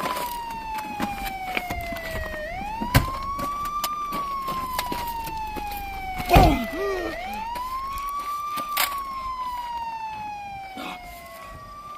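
Emergency-vehicle siren wailing in slow cycles, each a quick rise then a long fall, about every four and a half seconds. A few sharp knocks cut through it, the loudest about six and a half seconds in.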